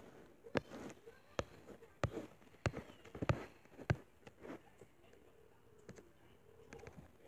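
A series of sharp, short clicks and knocks, about one every two-thirds of a second, which stop about four and a half seconds in. A faint steady hum follows.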